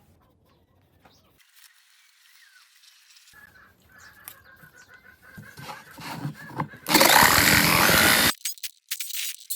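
A power tool runs in one short burst of about a second and a half near the end, starting and stopping abruptly, after a few seconds of quieter clattering.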